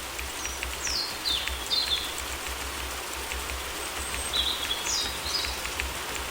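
Steady rain with scattered drip ticks, and a bird singing two bursts of quick, high, downward-sliding chirps: one about a second in and one around the fifth second.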